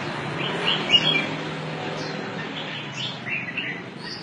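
Short high-pitched animal chirps, coming in quick little groups, over a steady low background noise.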